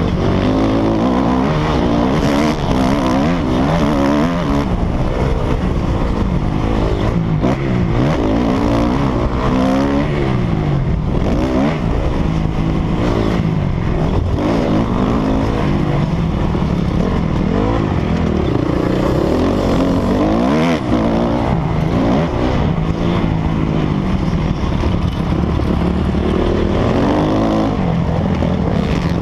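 Dirt bike engine revving hard, its pitch repeatedly climbing and falling as the throttle is opened and shut and gears change, heard from the rider's helmet.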